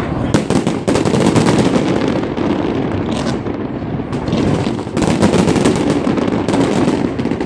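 Fireworks going off in a dense barrage: rapid volleys of bangs and crackling over a steady rumble, with the heaviest runs starting about a third of a second in and again about five seconds in.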